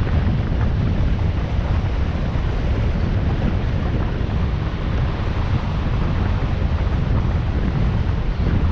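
Steady wind noise buffeting the microphone of a moving motorcycle, mixed with the bike's road and engine noise, heaviest in the low end.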